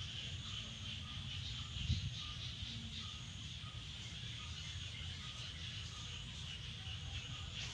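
Steady high insect chirring in the background, with low rustling and a soft knock about two seconds in.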